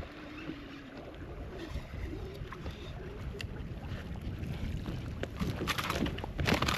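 Wind buffeting the microphone over an open boat deck, then, about five and a half seconds in, a short burst of splashing as a hooked bass thrashes at the surface and is swung aboard.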